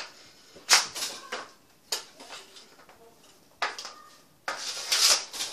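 Ice hockey stick shots on a hard indoor floor: several sharp clacks of the stick blade striking the floor and the puck, with a longer scraping rush and a cluster of knocks near the end.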